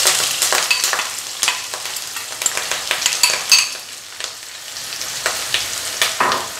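Chopped onions and green chillies sizzling as they drop into hot oil in a non-stick kadai, loudest right at the start, with a steel spoon scraping and knocking against the bowl and pan as it pushes them in and stirs.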